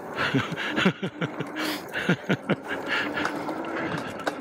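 Engwe Engine Pro folding fat-tire e-bike ridden fast over a dirt singletrack: a steady rush of wind and tyre noise, broken by many short, irregular rattles from the bike over the bumps.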